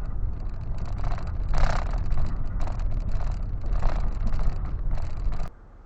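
Car on the move: a low rumble of engine and road noise with wind on the microphone, plus some irregular fainter sounds over it. The sound cuts off abruptly with a click about five and a half seconds in.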